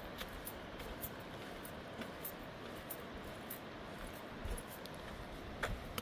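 Quiet outdoor ambience: a steady low hiss with faint, quick ticks about three a second, the footsteps of someone walking on a paved lane.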